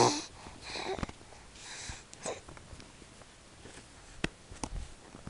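The tail of a baby's loud squeal, falling in pitch, right at the start, then soft breathy sniffs from the baby close to the microphone. A few sharp clicks and knocks come from the camera being handled.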